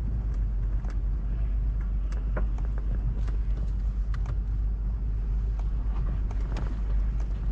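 Jeep Trailhawk crawling slowly over uneven off-road ground: a steady low engine and drivetrain rumble, with scattered short clicks and knocks scattered through it.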